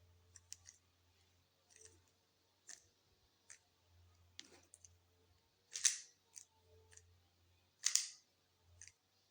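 Rubik's cube layers being turned quickly by hand: a scattered run of light plastic clicks and clacks as an OLL algorithm is performed, with two louder clacks, about six seconds in and again two seconds later.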